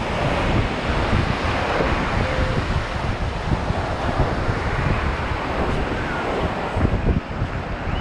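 Wind buffeting the microphone over the steady wash of ocean surf breaking on a beach.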